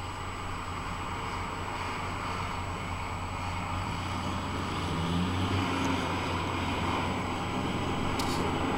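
Heavy farm machinery running steadily during a sugar beet harvest, growing a little louder toward the end.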